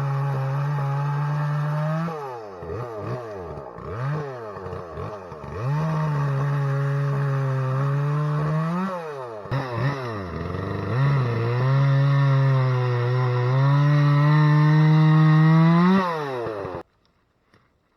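Two-stroke gas chainsaw running at high revs, its pitch dropping and climbing back several times as the throttle is eased off and reopened. It stops abruptly near the end.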